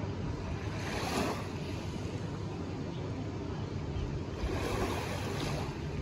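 Small sea waves lapping at the shoreline, washing in twice, about a second in and again near the end, over a steady low wind rumble on the microphone.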